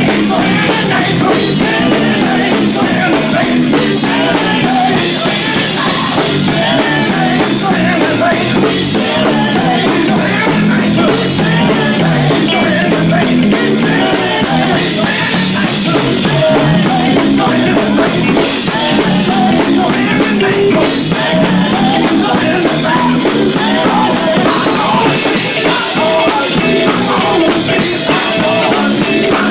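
Live gospel band playing at full volume, drum kit and cymbals driving a steady beat, possibly with voices in the mix.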